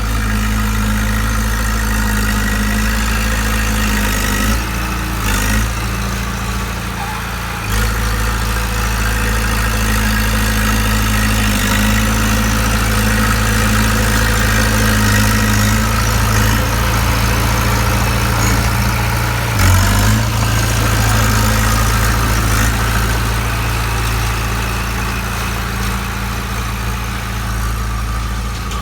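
Bulldozer's diesel engine running steadily at idle, dipping slightly for a few seconds around five to eight seconds in and giving a short surge about twenty seconds in.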